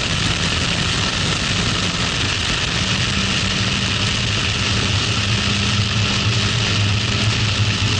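A Toyota MR-S's 1ZZ-FE 1.8-litre four-cylinder engine, on its stock exhaust, running hard at track speed. The engine note firms up about halfway through as the car picks up speed out of a corner. Heavy wind rush fills the open cockpit.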